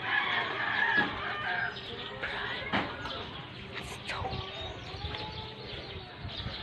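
Chickens clucking and calling, loudest in the first two seconds, with a couple of sharp knocks in the middle.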